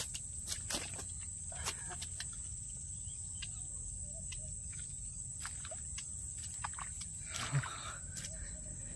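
Steady high-pitched insect drone, with a few sharp clicks and rustles in the first two seconds and a short rustle of handling about seven and a half seconds in.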